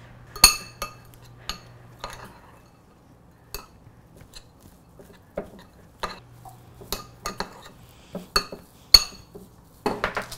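Metal spoon stirring and clinking against a small glass bowl as cake crumbs, walnuts and buttercream are mashed together: a dozen or so separate sharp clinks with a short glassy ring. Near the end, a louder rustling burst as parchment paper is laid over a glass baking dish.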